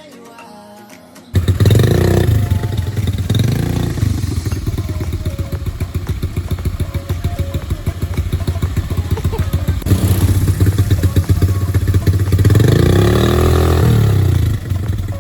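ATV engine running with a rapid pulsing beat, cutting in suddenly about a second in; its revs rise and fall shortly after it starts and again near the end.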